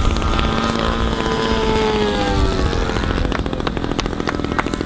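Engine of a radio-controlled model airplane passing low by the runway, its pitch falling as it goes by over the first two and a half seconds. Scattered sharp claps start near the end.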